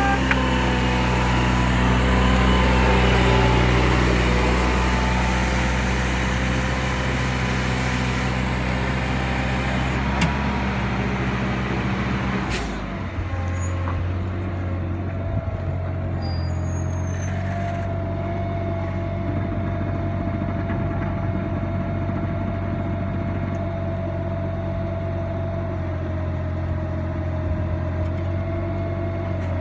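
Tennant S20 rider sweeper running, its engine note steady while it drives and sweeps. About halfway through the note changes to a lower steady hum, with a thin steady whine over it.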